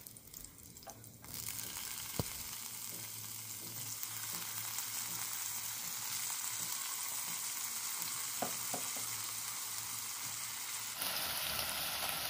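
Hot vegetable oil sizzling steadily as boiled, drained potato cubes are added to the pot and stirred with a silicone spatula; the sizzle starts suddenly about a second in, with a couple of light knocks from the spatula.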